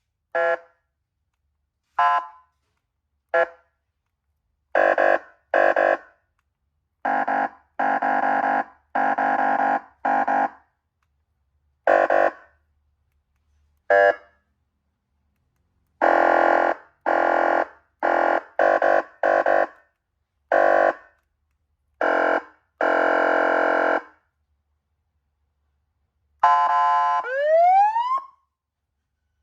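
SA5200 wireless police-escort siren module sounding through its loudspeaker: a string of short and longer steady horn blasts with gaps between them. Near the end a steady blast runs into a rising siren wail.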